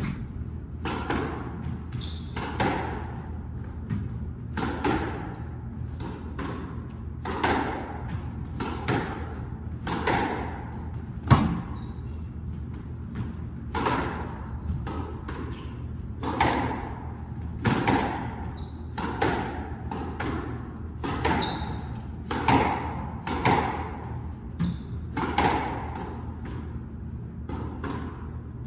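Squash ball hit back and forth in a rally: a steady run of sharp racket strikes and ball impacts on the court walls, about one a second, ringing in the enclosed court, the loudest a sharp crack about eleven seconds in.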